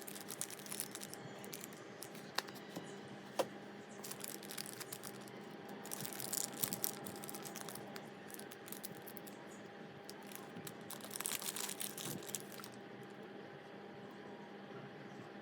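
Small plastic item and its packaging being handled: light crinkling, rustling and clicking in three spells, with a few single sharp ticks, over a faint steady hum.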